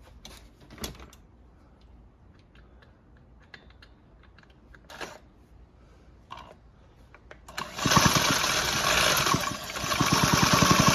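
A few faint clicks and taps, then about eight seconds in a power drill starts spinning a Husqvarna 128LD trimmer engine over with a loud, rapid, even pulsing whirr, easing briefly before picking up again. The engine is being turned by the drill to test the spark from a new ignition coil.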